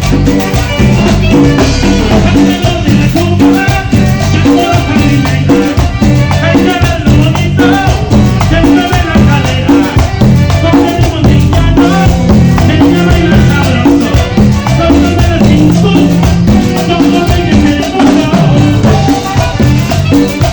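A Latin dance band playing live: an upbeat salsa-style tune with a bass line, drums and percussion keeping a steady beat.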